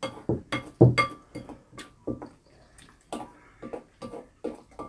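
Wooden spoons tapping and scraping ceramic bowls of fried rice in irregular clinks. A few strikes ring briefly, the loudest about a second in.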